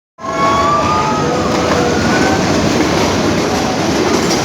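Toy train running on the rails: a steady, loud rumble with a few thin squeals over the first couple of seconds.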